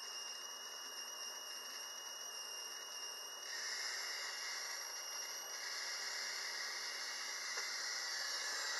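A 12-volt ignition coil firing continuously from a MOSFET driver: a steady, high, hissing buzz of rapid sparking that gets louder about three and a half seconds in.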